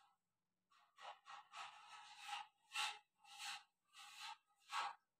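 Marker pen writing on a whiteboard: a string of about seven short, faint squeaky strokes as a word is written out.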